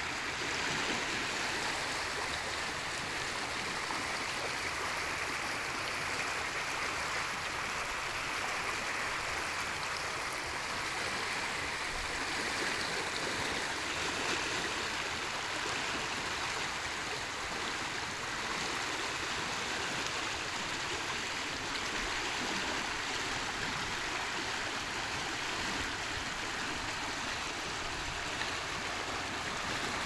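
Fast, muddy water rushing and churning along a narrow concrete-lined canal, a steady rush of flowing water.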